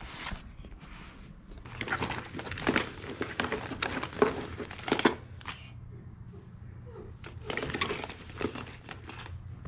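A hand rummaging through a fabric bag of plastic Easter eggs: the bag rustling and the hollow eggs clicking against each other. This comes in two spells, about two seconds apart.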